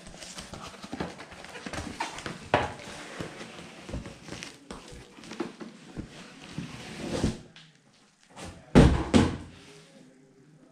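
Cardboard scraping and rustling with small knocks as a boxed chess board is slid out of its cardboard shipping carton. After a brief lull, two loud thumps about nine seconds in as the boxes are handled on the table.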